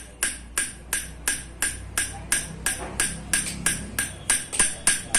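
Metal rod tapping a poppet valve against its seat in a bare motorcycle cylinder head: rapid, even metallic clinks, about four or five a second, each with a short ring. The ring is used to check the valve and its seat, and the mechanics judge it a good sound.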